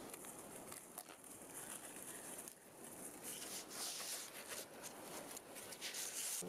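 Paracord being wrapped and pulled tight around a wooden ridge pole and tree trunk in a square lashing: rustling, scraping handling sounds with small clicks, busier and louder in the second half.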